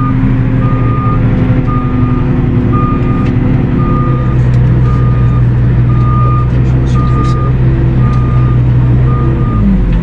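Heard from inside a Valtra tractor's cab, the tractor's engine and that of a Grimme Ventor 4150 self-propelled potato harvester alongside run steadily under load. A short electronic warning beep repeats about once a second. The engine note shifts about four seconds in and drops near the end.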